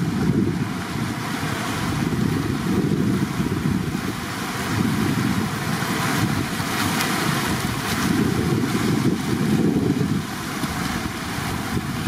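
Water rushing steadily over a rocky ledge, with wind buffeting the microphone in gusts.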